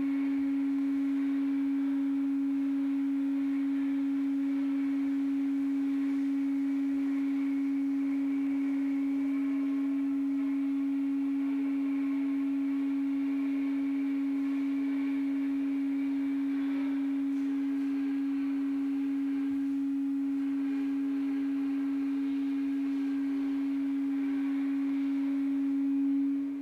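A single steady, pure-sounding note held without change, with faint higher tones and a light hiss beneath it: a sustained drone in a contemporary ensemble piece.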